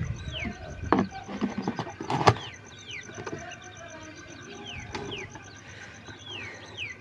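Chicks peeping: many short calls, each sliding downward in pitch, with a few lower calls from grown chickens. A few sharp knocks sound over them, the loudest a little over two seconds in.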